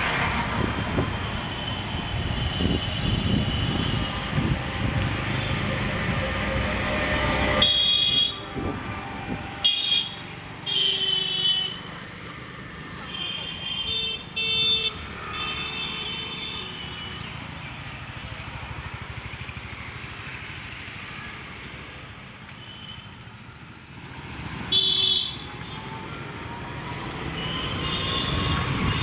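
Road traffic noise with vehicle horns tooting: a busy din at first, then a run of short horn toots from about eight to sixteen seconds in, and one more about twenty-five seconds in.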